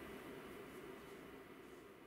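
Near silence: faint steady room hiss, slowly fading out.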